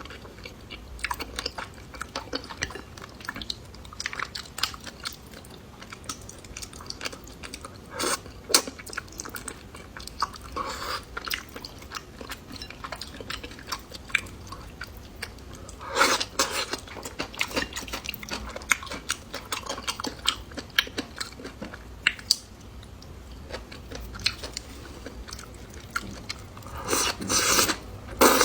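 A person chewing and biting food: a run of small mouth clicks and crunches, with louder bites about 8, 16 and 27 seconds in.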